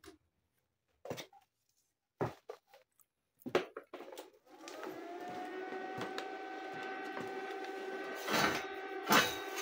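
Welding machine switched on about halfway through, spinning up and settling into a steady hum with a whine. Before it, a few knocks from handling; near the end, two short louder clatters.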